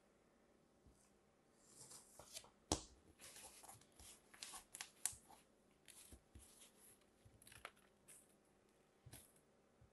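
Kinetic sand cut into cubes being broken up and scooped by hand: a run of short, quiet crumbling crackles, with one sharp click about three seconds in.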